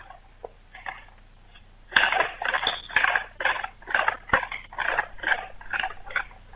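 Wooden pump fire drill, its spindle grinding against a wooden hearth board in quick strokes, about three a second, starting about two seconds in. This is friction fire-lighting, drilling to build an ember.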